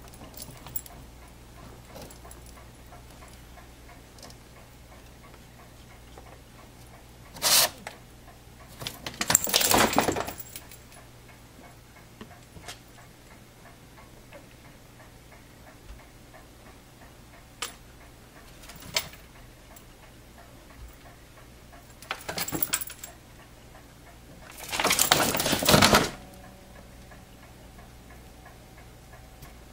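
Intermittent rustling and scraping in short bursts, the longest about a second and a half, a quarter of the way in and again twice near the end, with a few soft clicks between and a faint steady hum underneath.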